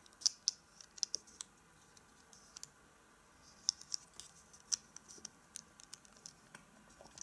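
Plastic LEGO bricks clicking and tapping as they are handled and pressed together, a scatter of small, sharp, irregular clicks.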